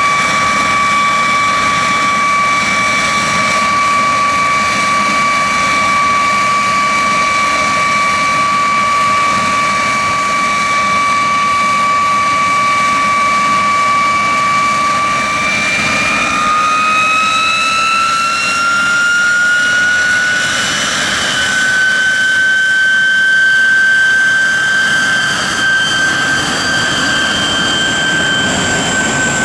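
de Havilland Vampire T.11's Goblin turbojet running on the ground, a steady high whistling whine over a rushing roar. About halfway through, the whine rises in pitch as the engine spools up to move the jet off to taxi, then holds at the higher note.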